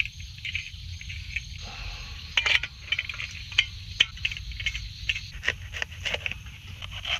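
Steady chirring of swamp insects, with scattered light clicks and knocks of camp gear being handled: a gas-canister stove fitted together, then a knife on a cutting board.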